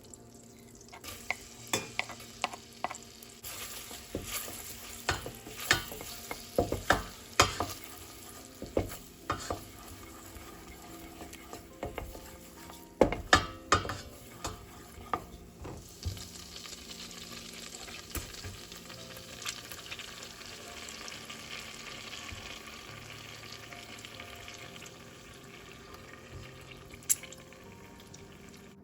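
Garlic frying in melted butter in a pan, sizzling as a utensil stirs and knocks against the pan. Sharp knocks come mostly in the first half, and a steadier sizzle follows.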